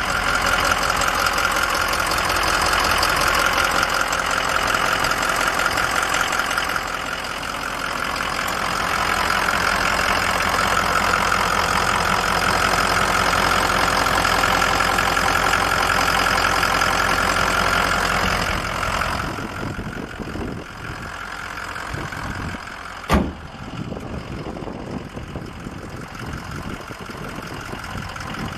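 Ford F-550's Power Stroke V8 turbo diesel idling steadily, louder for the first two-thirds and quieter from about 19 seconds on. A single sharp knock about 23 seconds in.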